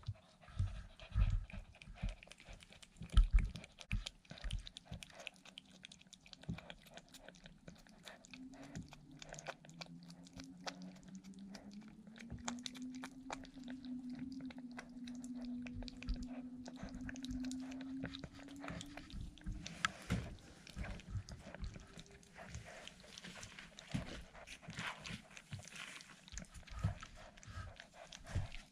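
A cat chewing and licking, a string of quick clicks and smacks. Through the middle stretch runs a faint steady hum that slowly rises in pitch.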